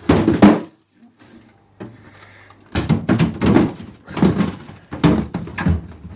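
Plastic freezer drawers of a fridge freezer being pulled out and pushed back. There is a loud scraping thud at the start, then after a pause a run of sliding and knocking strokes about twice a second.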